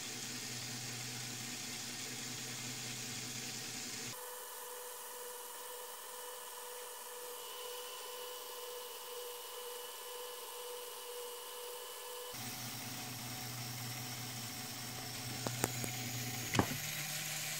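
Small LEGO electric motor running steadily through a reduction gear train of plastic gears, a low whir with faint steady tones. A few sharp clicks come near the end.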